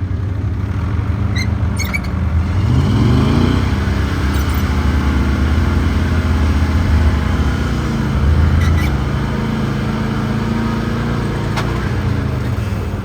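Heavy engine running. It revs up with a rising pitch about three seconds in, holds high and loud for several seconds under load, then settles back to a steady run.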